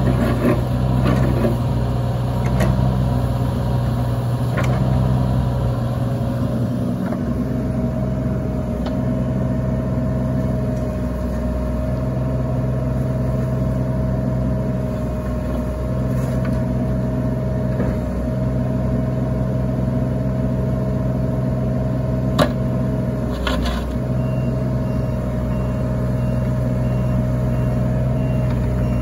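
Cat 303.5E mini excavator running steadily, its diesel engine hum overlaid with a hydraulic whine that rises a step about a quarter of the way in as the machine is worked. Two sharp metallic clunks come about three-quarters of the way through.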